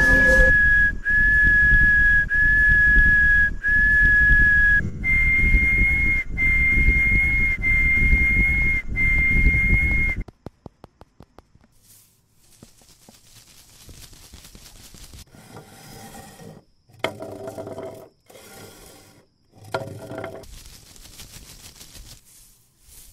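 A high, steady whistle-like tone in a run of even notes about a second long, four at one pitch and then four a step higher, over a low rumble. It stops about ten seconds in and is followed by a quick run of clicks that die away.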